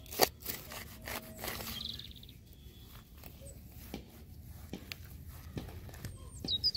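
A large knife cutting through grass turf: a sharp crunching cut just after the start and rustling for the first two seconds, then quieter scattered ticks of hands handling the turf. A bird chirps a few times near the end.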